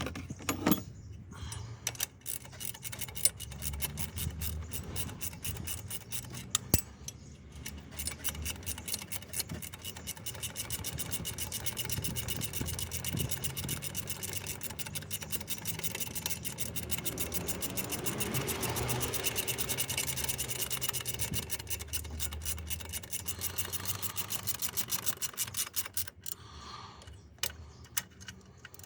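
A long run of rapid, even mechanical clicking that swells and fades, with scattered metal clinks and knocks, typical of hand tools working on engine parts.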